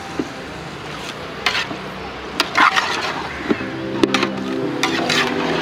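Metal ladle stirring chicken pieces in thick masala in a metal pot, with a few separate scrapes against the pot. Background music comes in about halfway through.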